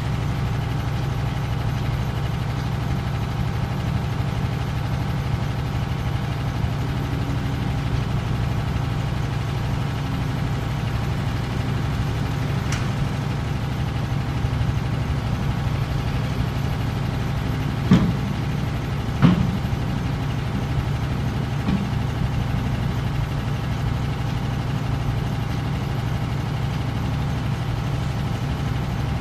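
Heavy diesel engines of an off-road dump truck and a hydraulic excavator running steadily in a deep drone. About two-thirds of the way in come two sharp metallic clanks, a little over a second apart.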